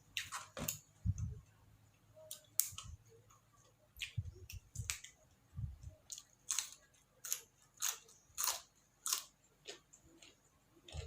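Close-up crunchy chewing of raw vegetables, a steady run of crisp bites and crunches about one to two a second, with a few dull low thumps in the first half.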